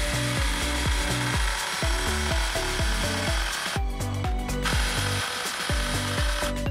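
Background electronic music with a steady beat and bass line, briefly dropping out about four seconds in.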